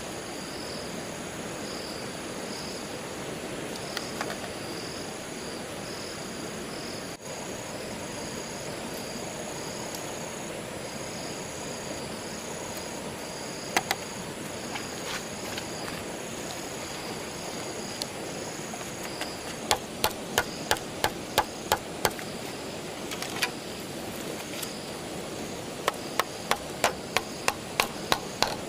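Tool striking bamboo: a few single knocks, then two quick runs of sharp knocks at about three a second in the second half. Steady insect chirring pulses throughout.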